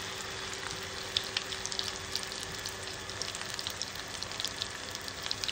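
Batter-coated prawns deep-frying in hot oil in a kadai: a steady sizzle with many small, scattered crackling pops.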